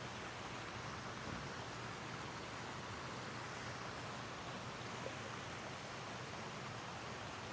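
Faint steady hiss of room tone and microphone noise, with one tiny tick about five seconds in.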